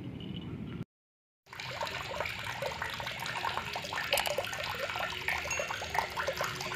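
A brief low rumble cuts off to silence under a second in. After the silence comes a water-like sound: a dense, steady patter of many small pops and drips.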